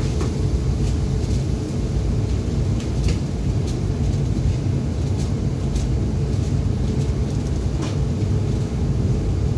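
Steady low rumble of a commercial kitchen extraction hood fan, with a few sharp metallic clicks and taps scattered through it.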